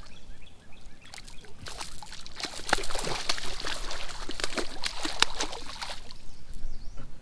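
A hooked catfish thrashing at the water's surface: repeated splashing and sloshing, building from about a second in, heaviest in the middle, easing toward the end.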